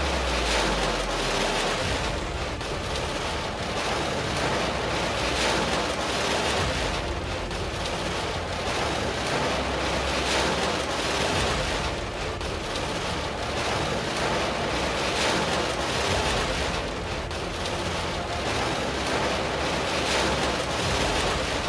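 Erupting volcanic vent giving off a steady rushing noise that swells and eases slightly.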